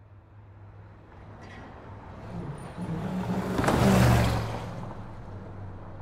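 Road traffic: a car driving past close by. Its engine and tyre noise swells to its loudest about four seconds in, then fades away.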